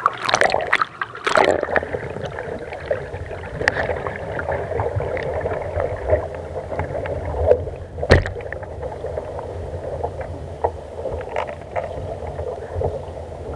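Water splashing over an action camera as it plunges under the surface beside a moving sailing skiff, then the muffled, steady rush of water past the submerged camera housing. Scattered small knocks, with one sharp knock about eight seconds in.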